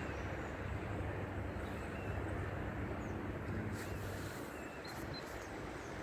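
Outdoor ambience: a steady rushing noise with a low rumble that fades after about four and a half seconds, and a few faint bird chirps.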